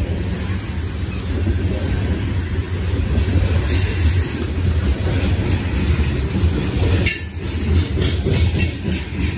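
Loaded coal hopper cars rolling past on steel wheels: a steady rumble over the rails, with a run of clanks and clicks near the end.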